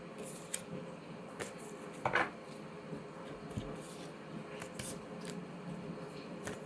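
Tarot cards being handled and laid down: scattered light clicks and rustles, the loudest a short rustle about two seconds in.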